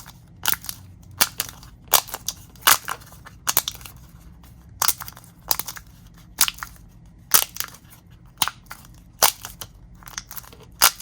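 Homemade pop-it fidget toy made from a plastic blister pack, its bubbles pressed in one after another: a string of sharp plastic pops, about one or two a second. The toy is brand new and is still being broken in.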